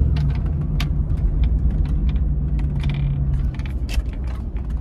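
Truck cab while driving: a steady low engine and road rumble, with irregular light clicks and rattles throughout.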